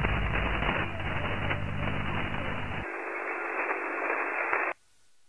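Shortwave receiver static in lower sideband: an even, crackly hiss. About three seconds in, its low end is cut away as the filter passband is narrowed. Near the end it drops almost to nothing when a narrow CW filter is selected, leaving a faint steady tone.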